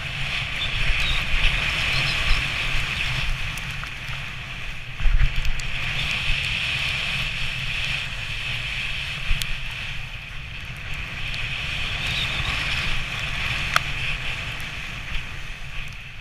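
Wooden sledge runners scraping and hissing over packed snow at speed, with wind buffeting the microphone and a rumble from the bumpy track. A sharper jolt comes about five seconds in, with a few small knocks later.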